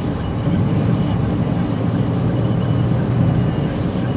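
Steady low rumble of a vehicle in motion, running evenly without a break.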